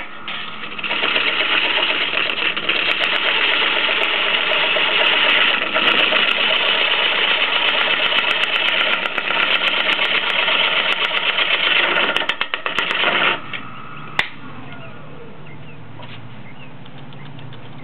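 Lathe gouge cutting into a large log spinning on a wood lathe: a loud, steady ripping scrape with fast rhythmic pulsing as the tool rough-turns the wood. The cutting stops about 13 seconds in, a single sharp click follows, and a lower steady hum remains.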